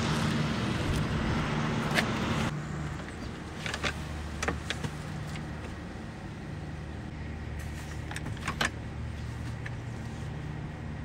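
Sharp clicks and light clunks of the rear seat-back release levers and latches as the seats are folded flat, a few near four seconds in and a few more near eight seconds, over a steady low hum. The first couple of seconds hold a rough hiss before a cut.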